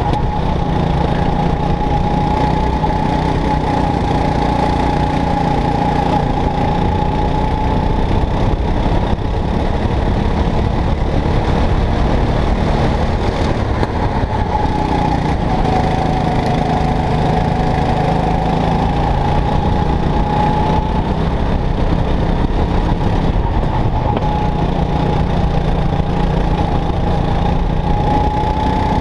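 Onboard sound of a racing go-kart's engine running continuously at speed, with a high whining tone that sags slightly midway and climbs again near the end.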